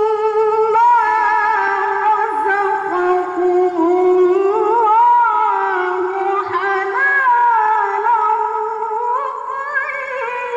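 A young woman's voice in melodic Quran recitation (tilawah), sung into a handheld microphone: long held notes with wavering, ornamented pitch turns, running on in one continuous phrase.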